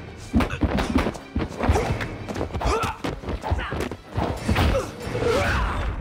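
Action-film fight sound effects: a rapid run of punch and kick impacts, several a second, over a loud film score.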